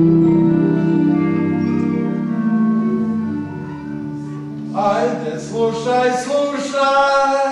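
Music: sustained organ-like chords, joined about five seconds in by a voice singing a wavering melody.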